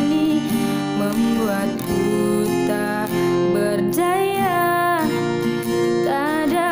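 Acoustic guitar strummed as song accompaniment, with a sung melody line coming in about four seconds in.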